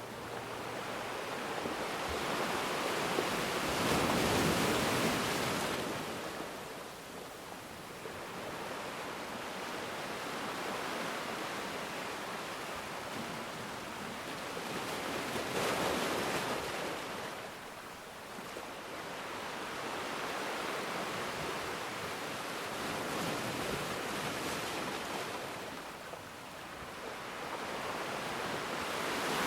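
Ocean waves: a steady rush of surf that swells and ebbs slowly, with three broad surges about ten seconds apart. The first, a few seconds in, is the loudest.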